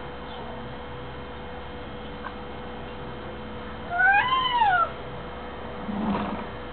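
Baby's single high-pitched whining squeal about four seconds in, rising then falling in pitch over just under a second, followed by a softer, lower vocal sound about six seconds in.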